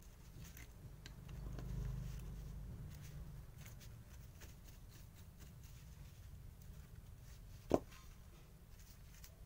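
Faint scratchy scrubbing of a stiff bristle paintbrush against a small die-cast metal car body, working softened old paint loose, with one sharp click about three-quarters of the way through.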